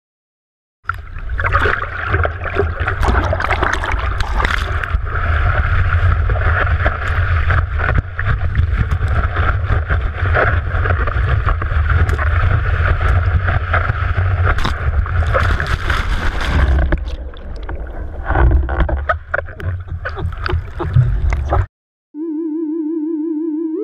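Water rushing past a paipo board's nose-mounted action camera as it rides a wave, a loud continuous rush with a heavy low rumble and splashing, more broken for the last few seconds. It starts about a second in and cuts off near the end, where a short warbling electronic tone begins.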